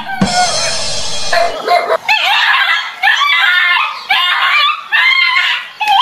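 A dog barking in quick, repeated high-pitched barks as it fights a stuffed toy tiger, with a harsh rasping noise during the first second or so.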